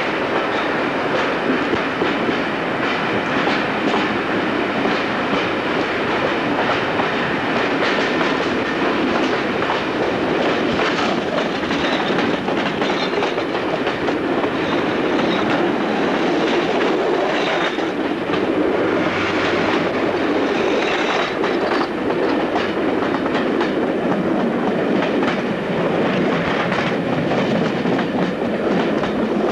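Train running on the rails: a steady rumble with frequent clicks from the wheels over the rail joints.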